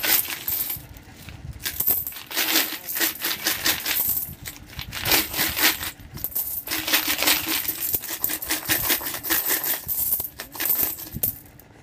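Coins rattling inside a pink plastic piggy bank and clinking onto a pile of coins as it is shaken out through its bottom opening, in repeated bursts with short pauses.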